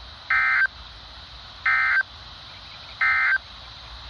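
Three short bursts of EAS SAME digital data tones from a NOAA Weather Radio broadcast, about a second and a half apart: the end-of-message code that closes a severe thunderstorm warning. Steady radio hiss fills the gaps.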